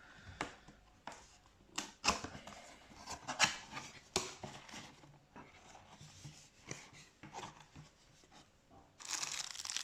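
Packaging being opened and rummaged through by hand: scattered knocks, scrapes and rustles, with a stretch of steady crinkling near the end.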